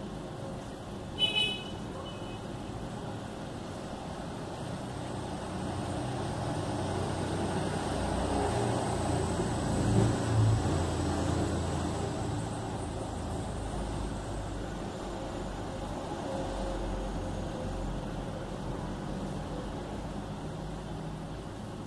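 Steady rain noise, with a low rumble that swells and fades through the middle, and a brief high chirp about a second in.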